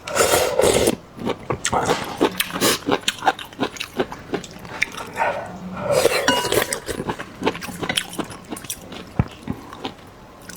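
Eating sounds, close to the microphone: slurping rice noodles in broth and chewing, with many small wet clicks and smacks and two louder slurps, one at the start and one about six seconds in.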